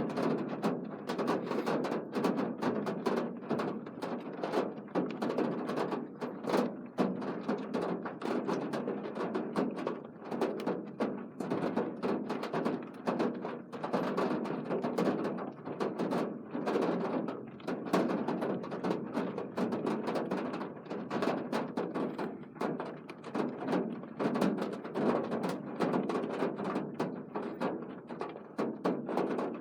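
Rain falling on a hard surface close to the microphone: a dense, irregular stream of small taps from raindrops and drips that goes on throughout.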